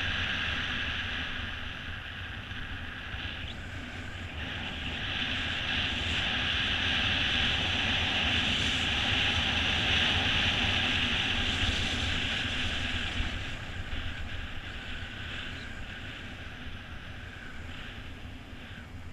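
Wind buffeting the GoPro's microphone as a mountain bike rolls downhill on asphalt, a low rumble under a steady high hiss that swells and then fades toward the end.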